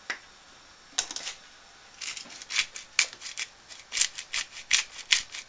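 Hand-held black-pepper grinder being twisted, giving a quick, uneven run of short crunchy grinding rasps, several a second, as peppercorns are cracked.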